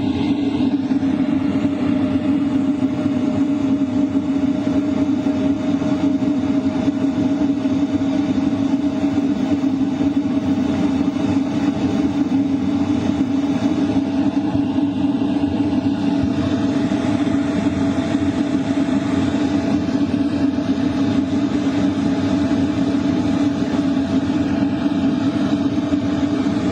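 LF Bros diesel heater running at its 5-kilowatt maximum: a loud, steady rush of hot air through the duct over a low hum, with a faint whine that creeps slightly higher in pitch as the blower speeds up and the airflow gets stronger.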